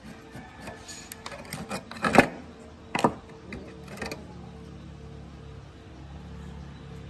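Small clicks and clatter of hard objects being handled, with two louder knocks about two and three seconds in. After that a steady low hum sets in and slowly grows louder.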